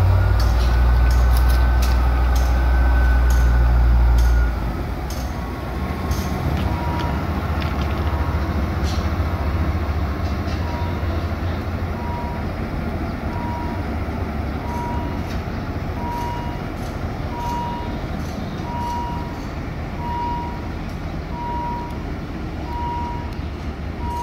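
Diesel shunting locomotive HAS 77 running loud with a whine that rises and falls, then easing off after about four seconds as it moves KiHa 183 series railcars along the track, with scattered sharp clicks and knocks from the running gear. From about six seconds in, a short beep repeats roughly every second and a quarter.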